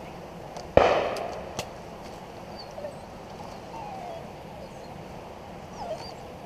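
A single shotgun shot about a second in, its report dying away in a long echo, followed less than a second later by a much fainter sharp crack.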